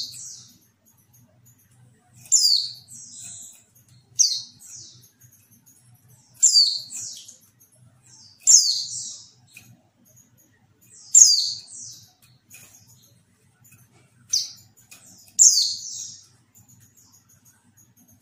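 Female white-eye (pleci) calling, a recording of the kind played as a lure to make male pleci answer and sing. About seven short, high calls come every two seconds or so. Each sweeps downward in pitch and is followed by a softer trailing note.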